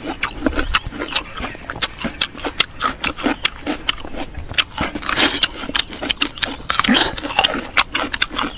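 Close-miked chewing and crunching of pickled fruit: a quick, irregular run of sharp crisp clicks, with louder wet mouth noises about five and seven seconds in.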